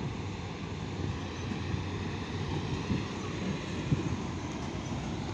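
Low, steady rumble of a train moving slowly through the station, mixed with wind buffeting the microphone.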